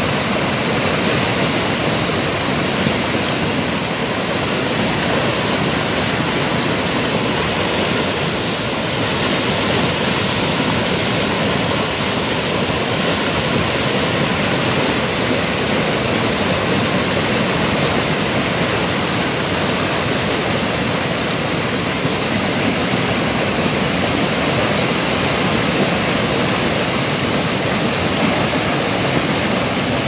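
Muddy floodwater pouring over the crest of a low river dam and churning down its spillway: a steady, unbroken rush of water.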